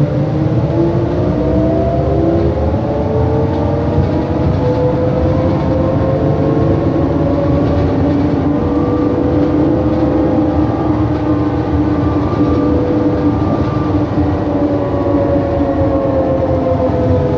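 2007 New Flyer E40LFR diesel-electric hybrid bus under way. A whine of several tones from the drivetrain rises slowly over the first few seconds, holds, then falls again near the end, over a steady low rumble.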